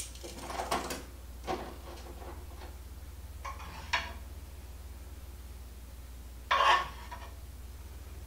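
A serving utensil scraping and clinking against a skillet and a plate as chicken is served, in a few short separate bursts over a steady low hum.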